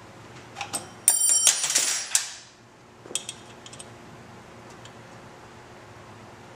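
A couple of small clicks, then about a second and a half of loud metallic clinking and rattling with a ringing edge, then a few light ticks: a hex key working the bolts of a motorcycle's metal cheese wedge engine cover as they are snugged up.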